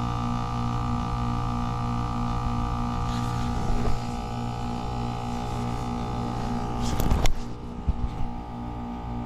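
Heat pump outdoor unit running just after a defrost cycle: a steady droning hum of fixed tones with one tone pulsing regularly. A brief clatter comes about seven seconds in.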